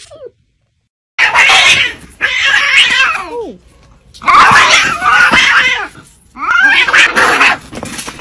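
Two cats fighting, with loud cat cries in four long bursts separated by short pauses, starting about a second in.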